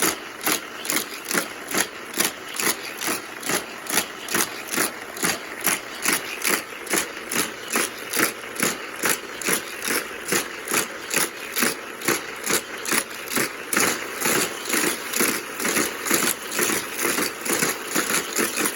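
Battery-powered Hot Wheels track booster running, its motor whirring steadily while die-cast toy cars clatter round the plastic track in an even rhythm of clicks, about three a second.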